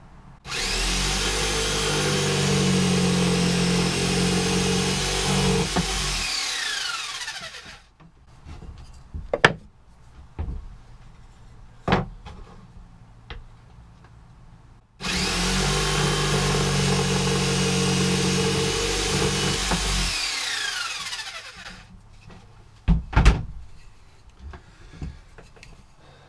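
Hand-held power saw cutting through a wooden board twice, each cut lasting about five seconds, its motor whine falling away for a couple of seconds after the trigger is released. Sharp knocks of wood and tool being handled between and after the cuts.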